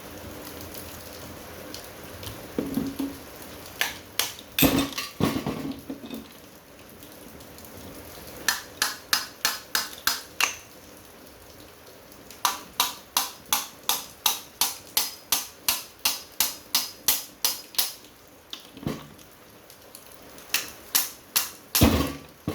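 Repeated hammer blows, about four a second, in several runs with short pauses between, breaking apart a scrapped air-conditioner part to get at its copper.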